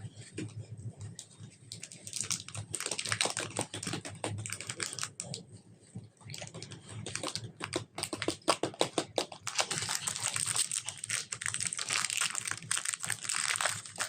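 Slime being kneaded and mixed by hand, giving off rapid, irregular sticky clicks and crackling pops. There is a short lull about six seconds in.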